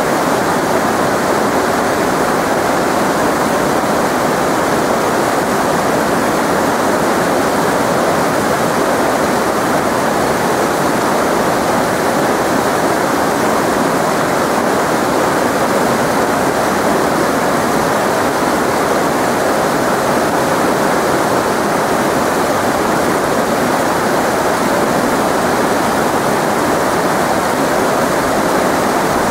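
Fast, shallow mountain river rushing over rocks and boulders. The white water makes a loud, steady noise with no let-up.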